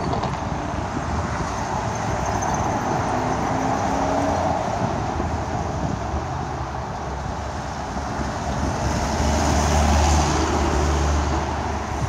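Road traffic on a busy multi-lane street, with cars and trucks passing. About nine seconds in, one vehicle passes louder, with a low rumble that swells and then fades.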